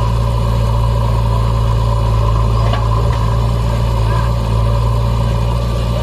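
Diesel engines of a JCB 3DX backhoe loader and a Tata tipper truck running steadily, a loud, even low drone.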